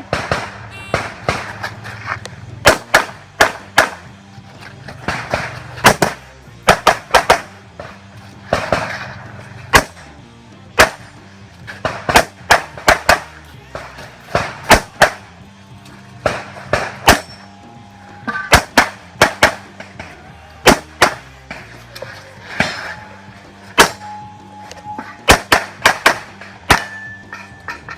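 Handgun shots fired in quick pairs and short strings, with gaps of a second or more between strings as the shooter moves through a practical shooting stage. Background music plays underneath.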